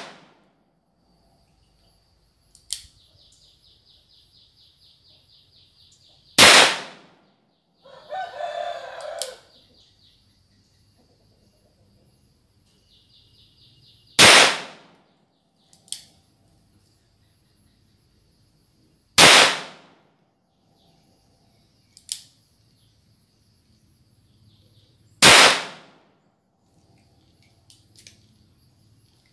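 Four shots from a Taurus M83 .38 Special revolver firing flat-nosed practice rounds, spaced about five to eight seconds apart, each ringing on briefly. About eight seconds in, between the first and second shots, a long animal call sounds in the background.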